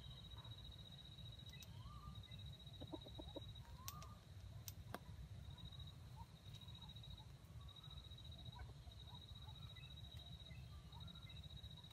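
Faint red junglefowl clucking: a quick run of soft clucks about three seconds in and a few scattered short calls, over a steady high-pitched drone and a low rumble.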